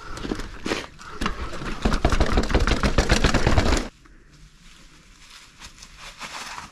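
Mountain bike riding fast over rough ground: dense rattling and clattering with tyre and wind noise, which drops off abruptly about four seconds in to a quieter rustle.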